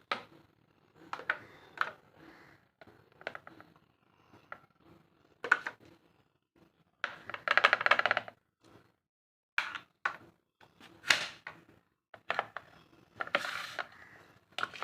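A spoon scraping and clinking against a container in irregular short bursts as soap mixture is scooped, with a longer scrape a little after halfway.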